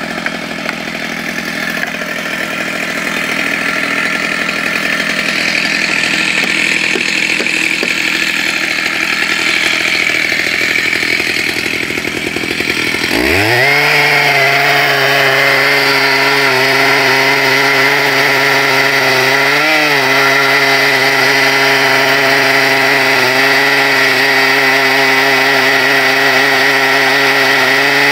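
Stihl chainsaw on a chainsaw mill ripping a lengthwise cut through an ash log. For the first dozen seconds the sound is a rougher noise without a clear engine note; about 13 seconds in the engine pitch rises sharply and then holds as a steady full-throttle drone while the saw cuts.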